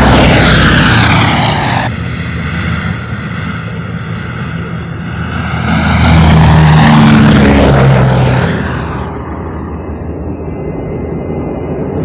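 Four-engined B-29 Superfortress bombers, with Wright R-3350 radial piston engines, taking off and passing close one after another. The heavy propeller drone is loud at first and cuts off abruptly about two seconds in. A second bomber then swells louder, peaking around six to eight seconds in, and fades away.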